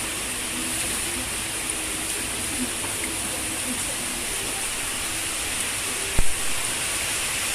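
Steady rushing noise of water, even and unbroken, with a single dull thump about six seconds in.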